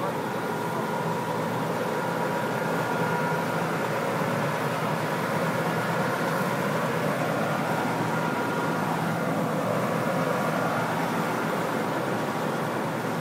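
Diesel big-rig truck engine idling steadily close by, an even, unchanging hum.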